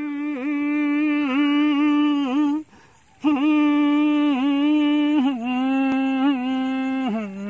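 A man humming a slow tune unaccompanied, with lips closed, in two long phrases of held, slightly wavering notes. There is a short breath pause a little under 3 s in, and the pitch steps down twice in the second phrase.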